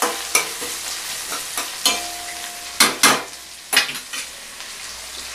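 A metal spoon stirs and scrapes through mud crab frying with onions and chillies in a stainless steel kadai, over a steady sizzle. The spoon clanks sharply against the pan about five times.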